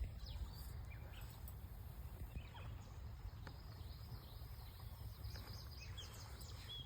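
Faint outdoor ambience: a steady low rumble with scattered faint bird chirps.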